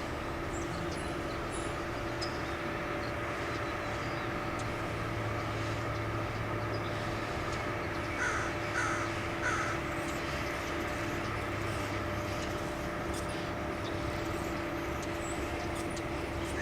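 A steady low hum throughout, with three short, harsh bird calls about two-thirds of a second apart a little past the middle.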